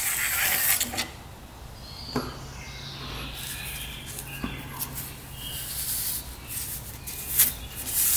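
Hand work on outboard water-pump parts: faint light clicks and short rustling, scraping noises, with a brief hiss near the start and again at the end.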